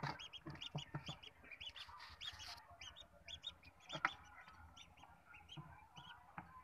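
Newly hatched ducklings peeping in quick runs of short, high calls, several a second. A few knocks and bumps come between them, the loudest about four seconds in.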